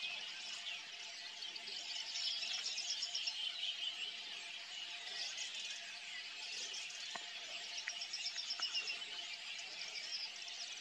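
Several birds singing and calling at once, with bursts of rapid high trills about two seconds in and again about eight seconds in.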